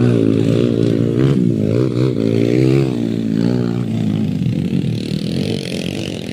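Trail motorcycle engine revving, its pitch rising and falling with the throttle as it climbs, then easing off after about four seconds.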